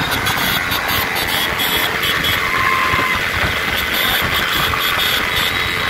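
Many motorcycle engines running together at low speed, a steady, dense mass of engine noise.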